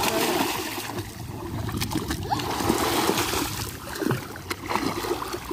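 A child diving forward into shallow water and thrashing about, with water splashing and sloshing.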